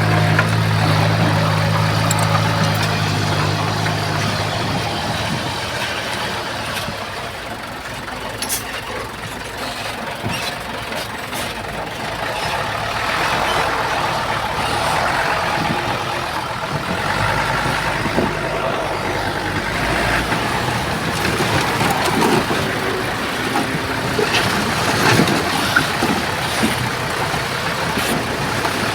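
Heavy diesel earthmoving machinery at work: a steady low engine hum for the first few seconds, then a rougher rumble that rises and falls with the load.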